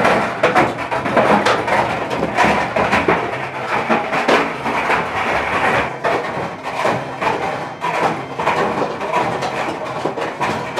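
Front-loading clothes dryer running, its drum tumbling spools of 3D-printer filament that knock and clatter irregularly against the drum over a steady low hum.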